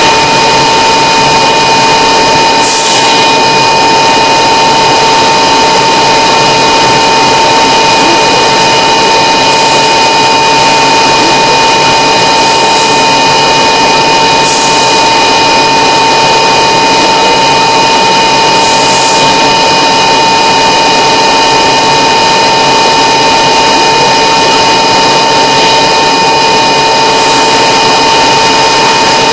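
MiG-29 jet engines heard from inside the cockpit while the aircraft taxis: a loud, steady whine with a high tone over the rush of the engines. A few brief, faint hisses come and go every few seconds.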